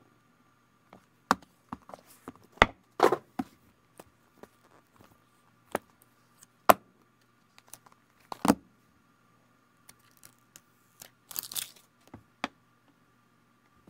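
iPhones and their small cardboard boxes handled on a tabletop: a series of sharp clicks and knocks as box lids and phones are picked up and set down. Near the end there is a short crinkly tearing sound, like paper or plastic wrap being pulled off. A faint steady hum runs underneath.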